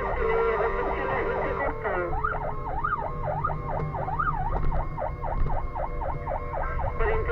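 Fire engine siren sounding a fast yelp, about three or four sweeps a second, with a few slower, wider sweeps between about two and four seconds in. A steady lower tone drops away about two seconds in, and the truck's engine rumbles beneath.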